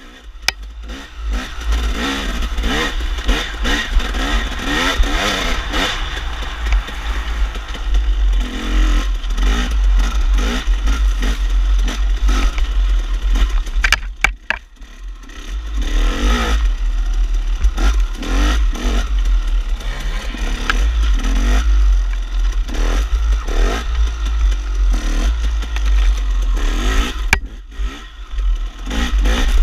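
KTM enduro dirt bike engine revving up and down continuously as it is ridden through tight single track, with the throttle closed briefly about halfway through and again near the end. A low wind rumble sits on the microphone throughout.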